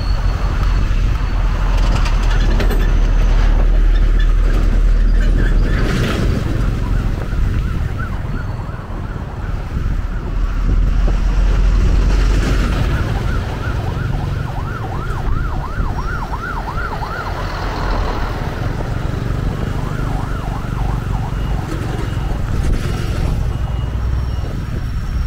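Heavy low rumble of wind and road traffic on the microphone. An emergency-vehicle siren joins it in the middle, yelping rapidly up and down at its loudest, then fades.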